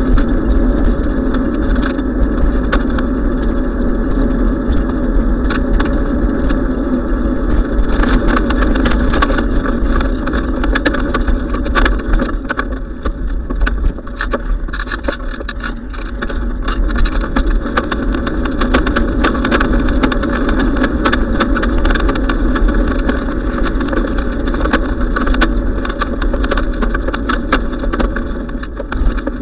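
Wind buffeting and road rumble on the microphone of a camera riding on a moving bicycle, with rattling clicks from the bike and mount over the pavement that come thickest about eight to twelve seconds in and again near the end. The sound eases briefly partway through.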